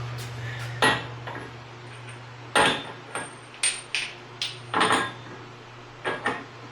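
Metal hand tools clanking and clinking, about eight sharp separate knocks, while working on an off-road vehicle's wheel hub. A steady low hum sits underneath.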